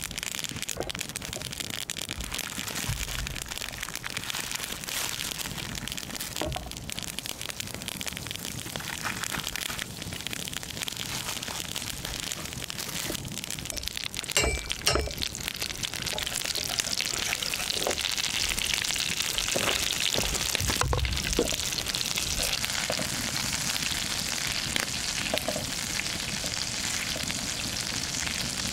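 Butter sizzling and frying in a frying pan over a wood campfire, the sizzle growing louder and brighter about halfway through as it heats up. A few sharp clicks and crackles stand out over it.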